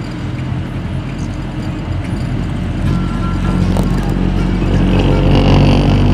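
A motor vehicle's engine running, its low drone growing louder through the second half and peaking near the end.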